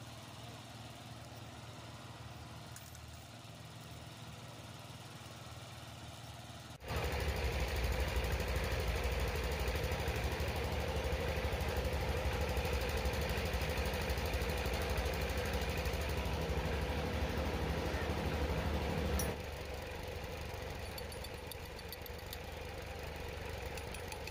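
An engine running steadily at idle. It becomes abruptly louder about seven seconds in and drops back about nineteen seconds in.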